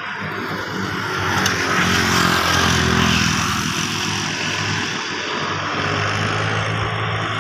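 Motorway traffic: a vehicle's engine hum and tyre noise swell as it passes, loudest about two to three seconds in, then fade. Another engine hum builds near the end.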